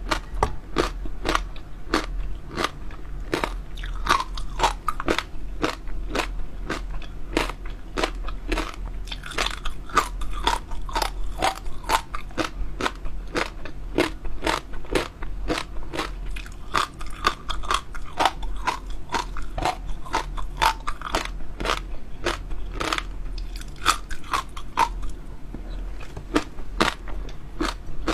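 Close-miked eating of crisp food: rapid crunching and chewing, several sharp crunches a second.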